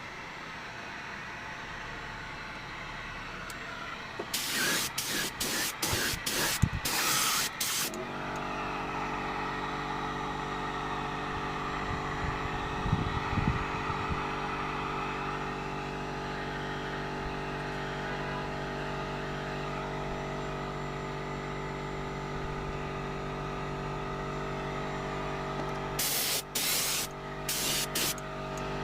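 A spray gun is triggered in a series of short bursts, spraying dye onto a steering wheel. About eight seconds in, a hand-held drying blower starts and runs steadily with a motor hum. A few more short spray bursts come near the end.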